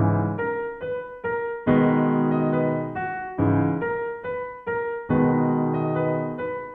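Background piano music: a chord struck about every second and a half, each fading, with single notes picked out between the chords.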